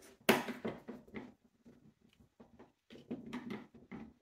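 Airsoft gearbox shell halves being pressed together and handled: a sharp knock about a third of a second in, then small clicks and scrapes, with another cluster of soft handling clicks near the end.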